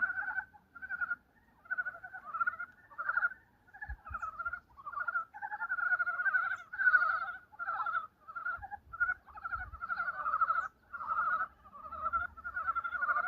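A chorus of Korean brown frogs (산개구리) calling: many overlapping, rapid rattling croaks that come in short runs one after another with brief gaps. These are the first breeding calls of early spring.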